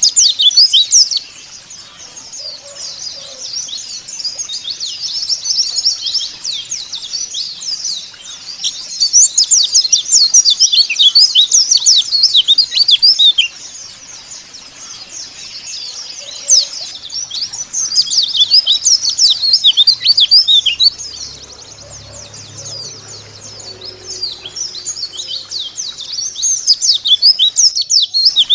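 White-eyes (pleci) twittering: a rapid stream of high, thin chirps that swells into loud bursts of chatter several times and eases back to softer twittering in between.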